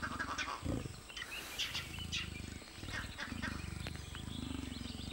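Low, pulsing growls from a large wild animal, with short bird chirps scattered over them and a quick run of chirps starting near the end.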